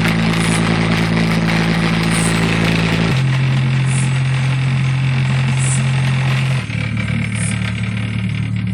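Bass-boosted hip-hop playing loud through a car's cheap speakers: long, deep bass notes, each held for about three seconds before stepping to a new pitch, with light ticks on top.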